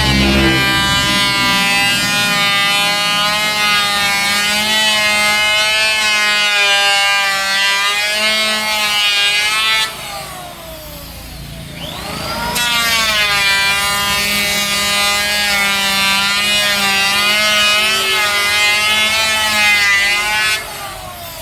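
Handheld electric power tool working a wooden board: the motor spins up with a rising whine, runs for about ten seconds with its pitch wavering under load, then winds down. About two seconds later it does the same again for a second pass.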